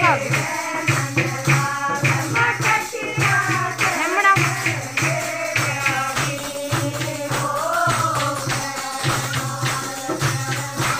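Women singing a folk song together to rhythmic hand clapping and jingling percussion, with a low beat about once a second.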